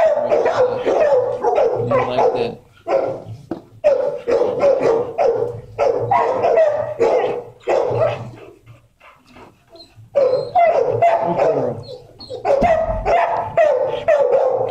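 Dogs in shelter kennels barking and yipping in quick runs of several barks a second, with a break of about two seconds past the middle.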